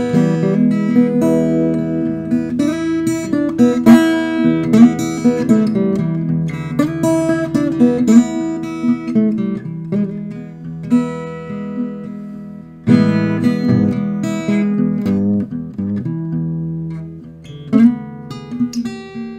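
Blues instrumental on acoustic guitar, with plucked notes and chords over low bass notes. The playing thins out and gets quieter, then comes back in with a loud chord about thirteen seconds in.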